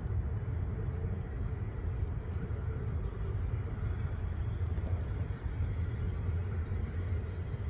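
Distant Airbus A319-132 with IAE V2500 engines rolling out on the runway just after touchdown, heard as a steady low rumble.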